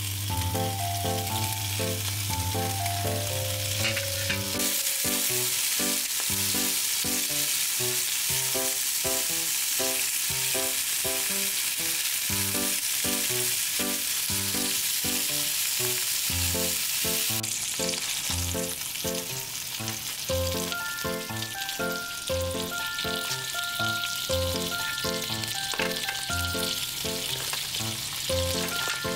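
Bacon-wrapped mini hamburger patties sizzling in a small rectangular frying pan. The sizzle grows loud about four seconds in and eases off a little past halfway. Light background music with plucked, piano-like notes plays throughout.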